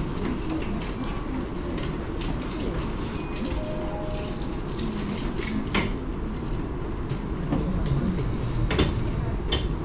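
Train running noise: a steady low rumble with a few short sharp clicks and knocks, the loudest near the end.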